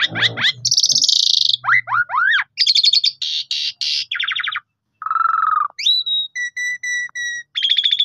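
Jalak suren (Javan pied starling) singing a continuous, varied song: quick rising whistles and harsh buzzy chatter, then a run of about five short, clear whistled notes near the end.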